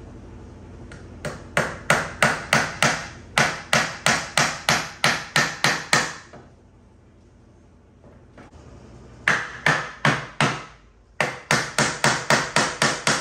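Steel hammer driving nails into the wooden formwork boards of a concrete countertop mould, in quick ringing blows about three to four a second. The blows come in three runs with short pauses between.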